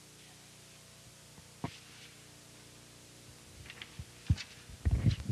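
Low steady electrical hum under the paused narration, with a sharp click a bit past one and a half seconds in and a louder cluster of knocks and rattles near the end.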